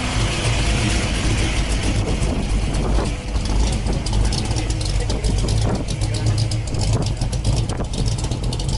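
Car engine idling steadily, with a fast light ticking from about halfway through.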